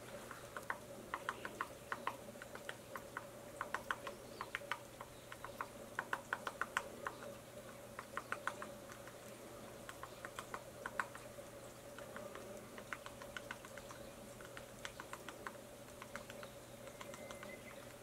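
Japanese pygmy woodpecker pecking at tree bark: sharp taps in quick irregular runs of a few strikes, busiest in the first half and sparser toward the end.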